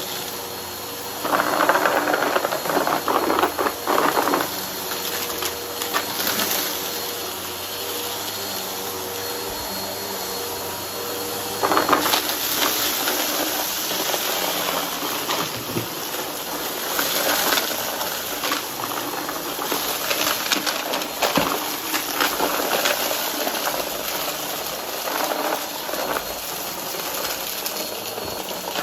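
Vacuum cleaner running with its brush roll over a debris pile, the steady motor hiss broken by crunchy, rattling stretches as debris is sucked up, loudest about two seconds in and again around twelve seconds.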